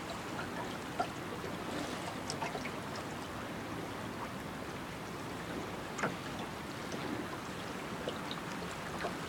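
A fast-flowing river rushing steadily, with small splashes and gurgles of water now and then.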